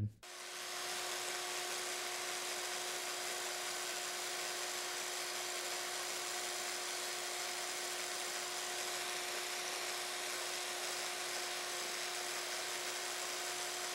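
Electric power scraper running steadily, a continuous whir with a constant hum, as its reciprocating blade scrapes down the blued high spots on a lathe compound slide during rough scraping-in.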